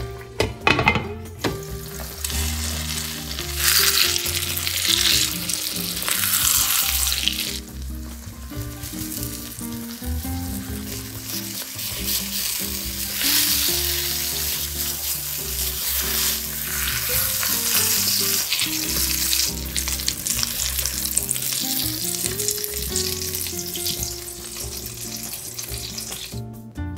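Grated zucchini and egg omelette frying in vegetable oil in a nonstick pan: a sizzle that swells and eases in long stretches, with a clatter about a second in. Background music with held notes plays underneath.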